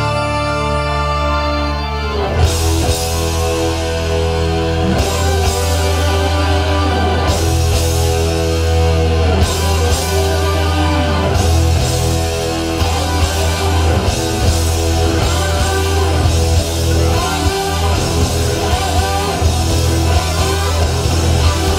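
Rock music with guitar over a heavy, steady bass, the full band coming in about two and a half seconds in, played through AUDIO EPILOG Prime MK II loudspeakers.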